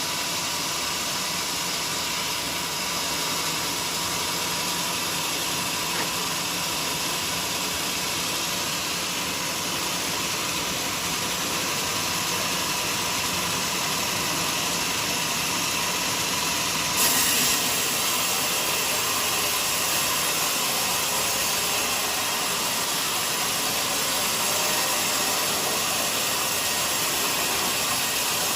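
Band sawmill running with a steady, hissing machine noise, briefly louder for a moment about seventeen seconds in.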